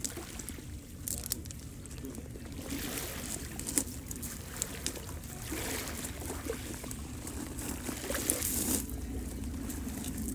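Small waves of a calm sea lapping and trickling against rocks and pebbles at the water's edge, with a few sharp clicks. The water sound swells in the middle.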